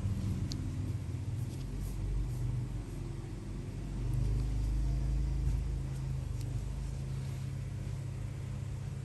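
A low, steady rumble, swelling a little from about four to six seconds in, with a few faint clicks over it.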